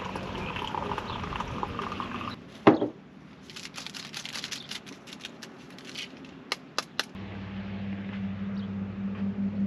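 Water running into a container at a camp kitchen, its pitch rising as the container fills, stopping about two seconds in. Then a sharp knock, a series of light clicks and taps, and from about seven seconds a steady low hum.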